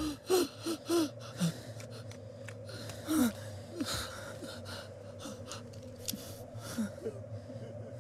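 Heavy, gasping human breaths with short strained cries, a quick cluster of them in the first second and a half, then single gasps about three and seven seconds in, over a low steady hum.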